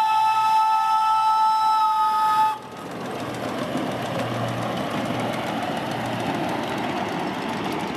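A 7½-inch gauge live steam locomotive's chime whistle blows a steady chord of several notes, then cuts off about two and a half seconds in. The locomotive then runs past on the rails with a steady rushing noise.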